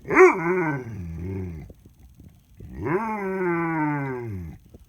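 A dog makes two long, drawn-out grumbling howls, the 'talking' noises of a dog complaining that it is being refused its walk. The first starts sharply and slides down in pitch. The second, about a second later, rises and then falls away.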